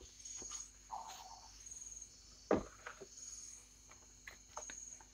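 Faint rubbing and knocks of a duster and marker on a whiteboard as it is wiped clean, the loudest knock about two and a half seconds in. A cricket chirps in short regular bursts in the background.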